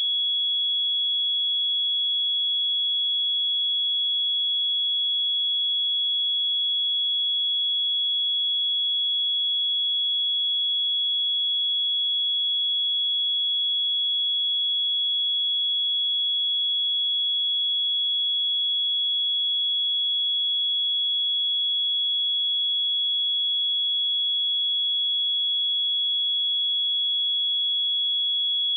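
A steady, unbroken 3357 Hz sine-wave test tone: a single high-pitched pure tone with no change in pitch or level.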